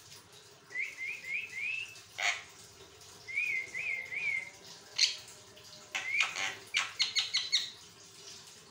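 Javan myna singing continuously: groups of three or four quick rising whistled notes, broken by a few short sharp calls, and a fast run of chattering notes in the second half.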